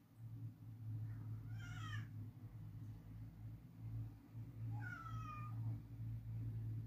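A cat meowing twice, about three seconds apart, each call short and falling in pitch, over a steady low hum.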